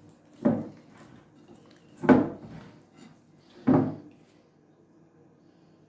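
Dough being kneaded by hand in a glass bowl on a wooden table: three dull knocks about a second and a half apart as each push thumps the bowl against the tabletop.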